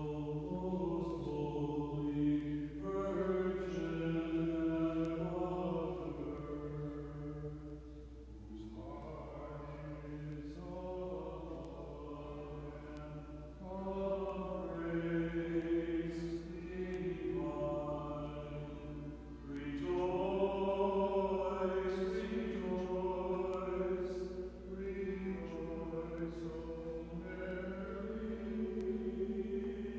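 Unaccompanied Orthodox moleben chant, sung in long held phrases with brief breaks between them.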